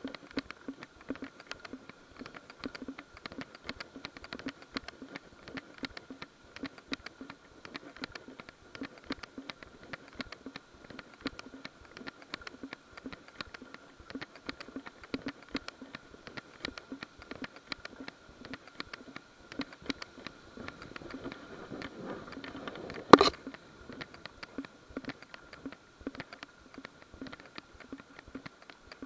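Continuous light clicking and pattering of movement noise from a small camera carried along a paved path, over a faint steady whine, with one sharp knock about three-quarters of the way in.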